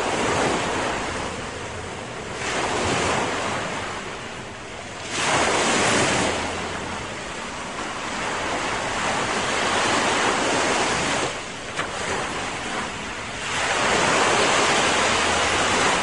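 Sea waves breaking and washing ashore, a rushing noise that swells and fades in slow surges every few seconds.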